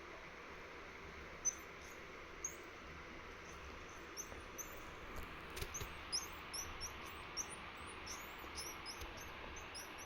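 A marmoset's short, high-pitched chirping calls, repeated many times and growing more frequent after about four seconds, with a sharp click about a second and a half in.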